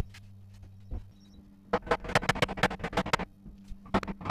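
A sharp wooden knock as a heavy timber frame part of a garden swing is set down, then a quick run of sharp clicks and knocks as the frame parts are handled, over a low steady hum.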